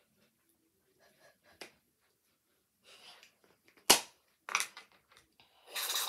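A plastic bottle shaken hard, with a sharp, loud pop about four seconds in and a shorter smack half a second later. Near the end comes a short rush of noise.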